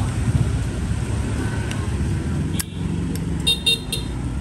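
Steady low rumble of street traffic, with a sharp click about halfway through and two short horn toots near the end.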